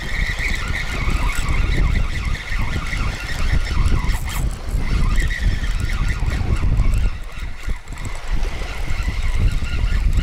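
Spinning reel being cranked against a hooked fish, its gears giving a steady high whine, under heavy wind noise on the microphone.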